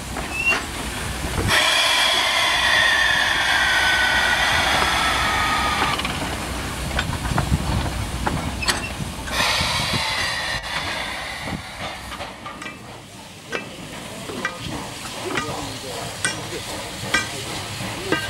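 JS-class 2-8-2 steam locomotive letting off steam: a loud hiss for several seconds with a squealing tone that falls in pitch, then a shorter hiss about ten seconds in. Sharp knocks and clanks follow at irregular intervals in the second half.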